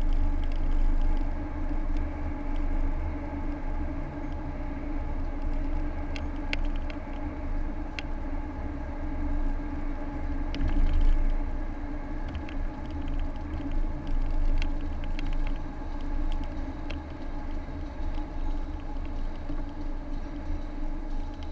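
Car cabin noise while driving: a steady low rumble of engine and tyres with a constant hum, and a few scattered sharp ticks and rattles.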